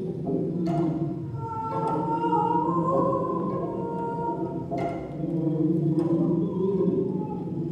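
Bowed cello playing low sustained notes, with a higher held tone above it for a couple of seconds and a few short sharp clicks.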